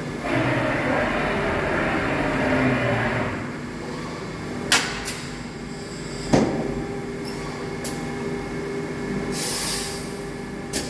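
EDEL CP 4020 five-axis portal milling machine running: a steady hum, louder and noisier for the first three seconds or so, with two sharp clicks about 4.5 and 6 seconds in, a short hiss near the end and a last click just before the end.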